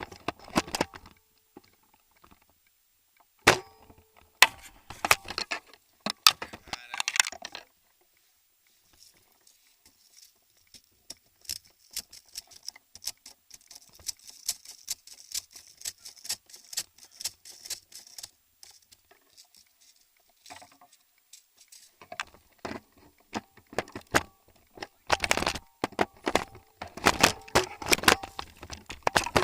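Irregular sharp clicks and rattling, in clusters, dying away about eight seconds in and building back to dense, louder clicking near the end.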